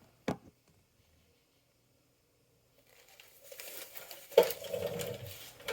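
A single click, then near silence, then plastic packaging crinkling and rustling as it is handled from about three seconds in, with a sharper knock about four seconds in.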